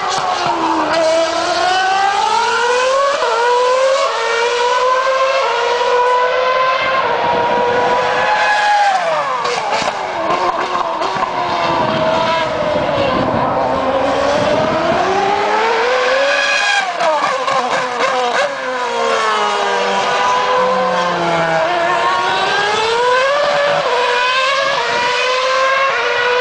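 Formula One car engine at high revs, its pitch climbing as it accelerates and then falling in quick steps as it downshifts under hard braking, the cycle repeating twice more.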